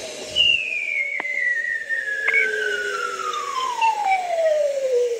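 Hydrophone recording of a male bearded seal's trill: one long call sliding steadily down in pitch from high to low, starting about half a second in, over a hissy background with a few faint clicks. It is the males' spring call, thought to court females or warn off rival males.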